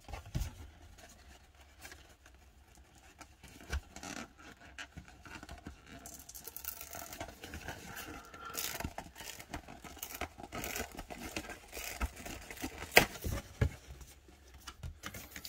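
Paper and thin card being handled and carefully pried open: rustling, scraping and scratching with scattered small clicks, and one sharper click near the end.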